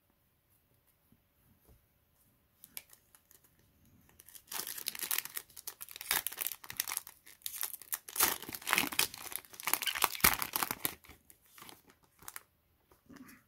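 Foil wrapper of a Yu-Gi-Oh! booster pack crinkling and tearing open: a dense crackle that starts about four seconds in, lasts about seven seconds and then dies away.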